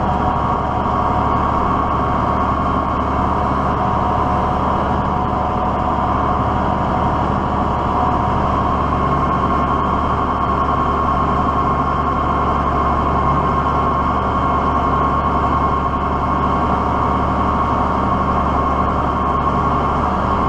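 Diesel tractor engine running steadily at an even speed.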